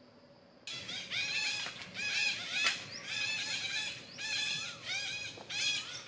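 Parakeets calling: runs of high, arching squawks in dense bursts of about a second each, starting suddenly about a second in.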